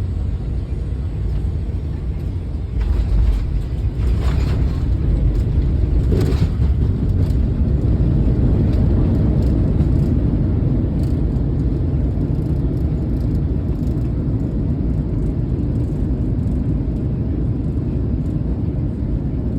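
Steady low rumble of a moving vehicle, getting louder about three seconds in, with a few faint knocks around four and six seconds in.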